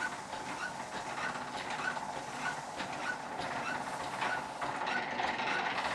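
Treadle lathe running, with a short high chirp from its mechanism repeating a bit under twice a second, over the steady rubbing of a waxy cloth held against the spinning wooden handle.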